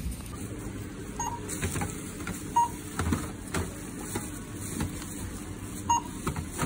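Checkout beeping three times as groceries are rung up, with knocks and clatter of tins and packages being handled on a steel counter.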